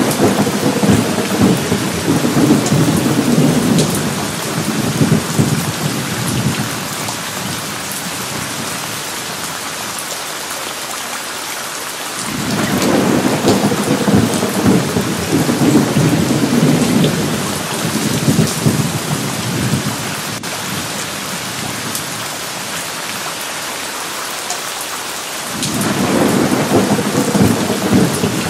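Thunderstorm: steady rain with three long rolls of thunder. The first rumbles through the opening seconds and fades. The second begins suddenly about twelve seconds in and rolls on for several seconds. The third starts near the end.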